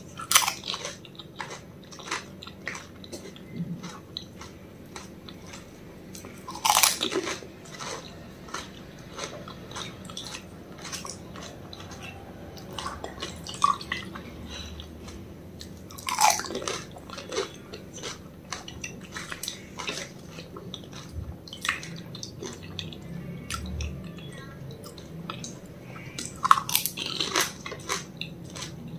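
Close-up crunching and chewing of crisp golgappa (pani puri) shells filled with pani. The crackle runs through, with a few louder crunching bites spread along it.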